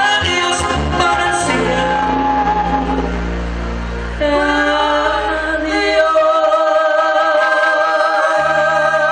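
Live Latin band playing with male vocals. About four seconds in the texture changes to long held sung notes, and the bass drops away for a couple of seconds before coming back near the end.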